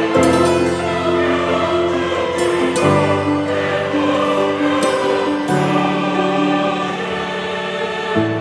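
Background music with choir-like voices, sustained chords that change every two to three seconds.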